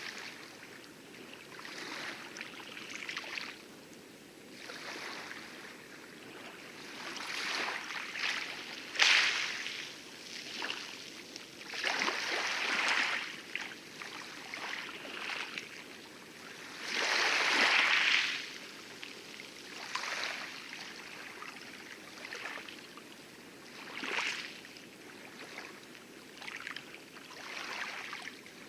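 Light lagoon waves lapping and splashing against coral in irregular washes, the loudest about nine seconds in and again near the middle, over a steady hiss of distant heavy surf on the outer reef.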